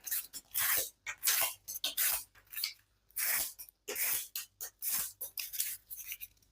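QSP Hedgehog slipjoint folding knife cutting through double-thick cardboard in a string of short, noisy strokes, about two a second. The blade has not been stropped or sharpened in 34 days of cutting.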